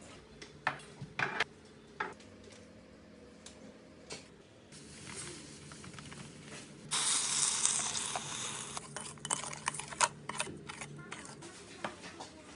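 Utensils and containers clinking and knocking, with a couple of seconds of hissing noise about halfway through.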